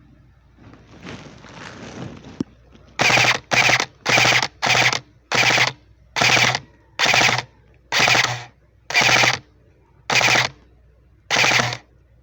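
Airsoft gun firing about eleven short full-auto bursts, quick together at first and then roughly once a second.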